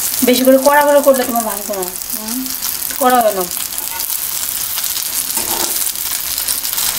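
Egg omelette frying in hot oil in a wok, a steady sizzle and crackle, while a metal spatula works it in the pan. A person's voice cuts in briefly near the start and again about three seconds in, louder than the sizzle.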